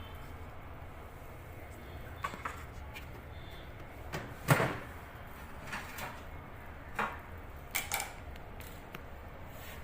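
Scattered clicks and knocks of microwave oven parts being handled and fitted during reassembly, the loudest knock about four and a half seconds in.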